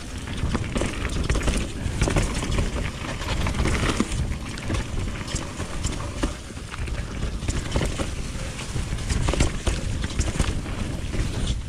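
Mountain bike riding down a dirt flow trail: a steady low rumble of wind and rolling tyres, broken by many short rattles and knocks as the bike goes over bumps.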